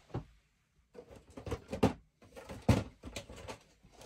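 Cardboard model-kit boxes being handled and shifted, giving several sharp knocks and thuds, the loudest near the middle.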